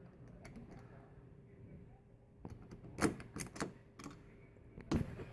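Light clicks and taps of doorknob hardware being handled and fitted together while a screw is lined up with its hole: a quick cluster of clicks about halfway through and a single sharper click near the end.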